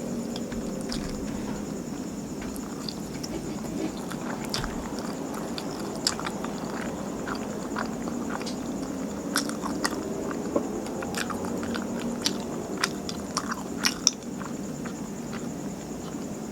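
Close-miked chewing of martabak manis, a thick sweet pancake: wet mouth clicks and smacks, most frequent through the middle stretch. A steady faint high hiss runs underneath.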